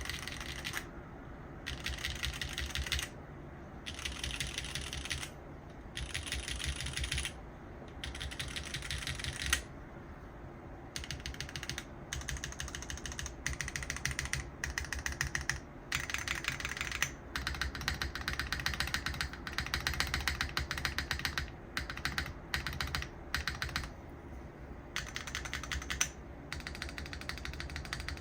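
Typing on a custom TGR Jane V2 mechanical keyboard with an o-ring mounted carbon fibre plate, Cherry MX Black linear switches fitted with Kailh stems, and GMK keycaps: fast runs of key clacks, in short bursts with pauses at first and then almost without a break. Picked up by a phone microphone.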